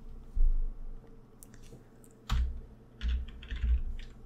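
Computer keyboard keystrokes: a low thud about half a second in, a single sharp key press a little after two seconds, then a quick run of several key presses around three seconds in.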